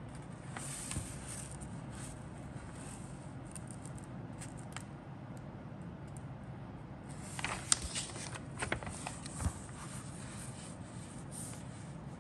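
Paper instruction booklet rustling as its pages are handled and turned, with a louder spell of crisp crackles and clicks about seven seconds in, over a steady low hum.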